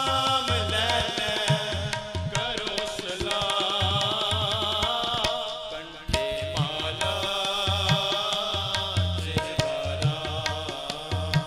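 Sikh kirtan music: tabla strokes with deep bass-drum beats under sustained harmonium chords. The music drops briefly about six seconds in and comes back sharply.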